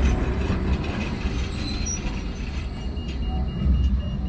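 Blackpool tram running along street track with a low rumble, and a faint high wheel squeal in the second half.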